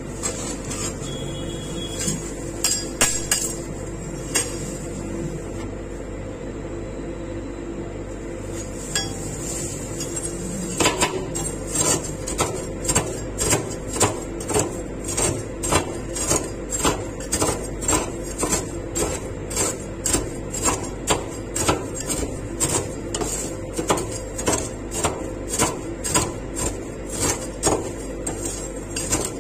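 Metal spatulas chopping crushed wheat crispies on a steel ice-cream cold plate: a few scattered taps at first, then from about eleven seconds in a steady run of sharp metal-on-metal strikes, about two a second, over a steady hum.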